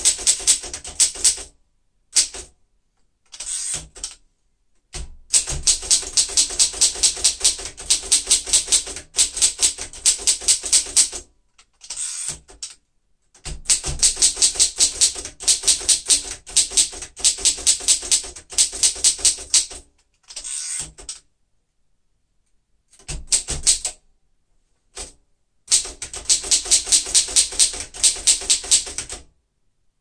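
1940 Royal Signet manual typewriter being typed on: runs of quick key strikes, about four a second, broken by short pauses.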